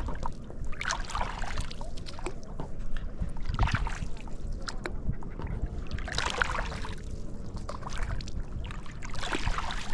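Stand-up paddleboard paddle strokes in lake water: a watery swish about every two and a half to three seconds, over a steady low rumble.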